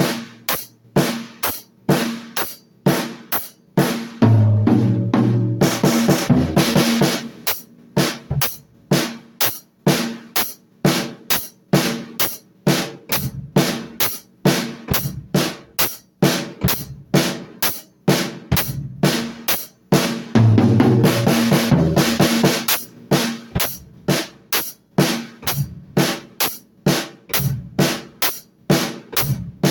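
Drum kit played in a steady, driving beat of bass drum and snare, with cymbal crashes and tom hits twice, near the start and again about two-thirds of the way through.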